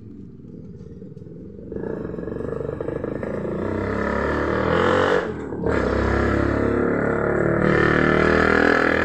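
A motor vehicle's engine, unseen, starts up about two seconds in and runs, growing louder with its pitch shifting. It drops away briefly about five seconds in, then comes back loud.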